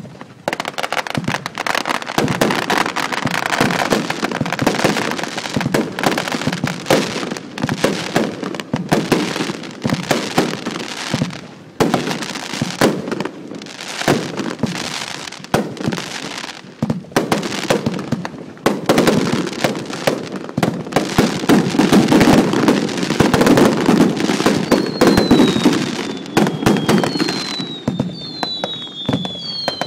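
Fireworks going off in a dense barrage: rapid overlapping bangs and crackling throughout, with several falling whistles near the end.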